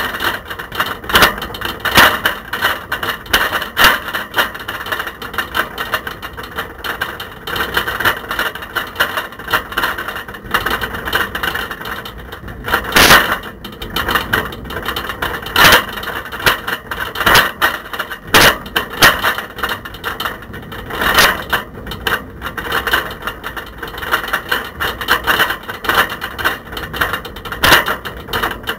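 A camera rattling and knocking loose in a bicycle's front basket as the bike rides along a road, a constant irregular clatter with harder jolts several times in the middle.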